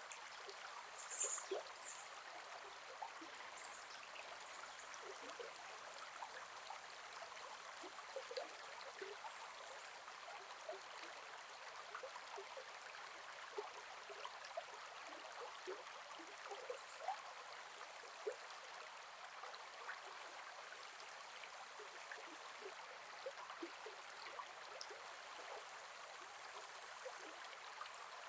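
Gentle forest river flowing: a steady soft rush of water with many small gurgles and plinks, and two short high chirps about a second in.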